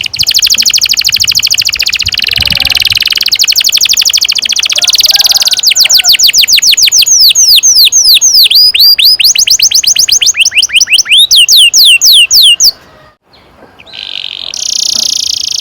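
Domestic canary singing a long rolling song: a rapid trill for about five seconds, then a phrase of slower sweeping notes, about five a second. The song breaks off briefly near the end before another trill starts.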